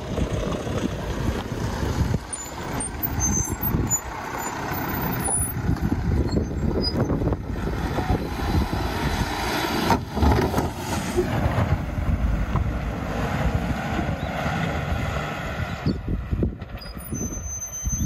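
Mercedes Sprinter motorhome's diesel engine working hard under load as the van crawls through a rocky creek dip and climbs the steep bank out of it, the engine note rising on the climb. A single knock comes about ten seconds in.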